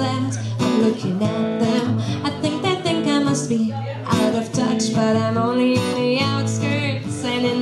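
Acoustic guitar strummed with a woman singing over it: a live voice-and-guitar duo.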